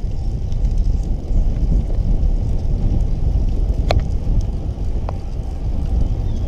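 Wind buffeting the microphone of a camera on a moving bicycle: a loud, steady low rumble, with a sharp click about four seconds in and a fainter one a second later.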